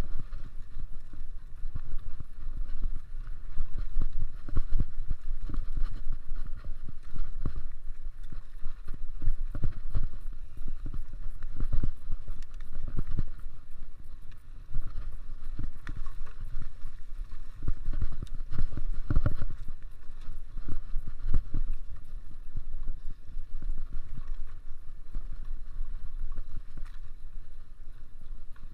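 Mountain bike ridden over a rough cross-country trail: a steady low rumble with frequent knocks and rattles as the bike bumps over the ground.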